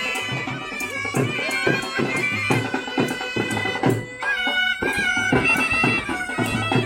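Snake charmers' been (pungi) playing a wavering, reedy melody over a steady drone, with drums beating along in time.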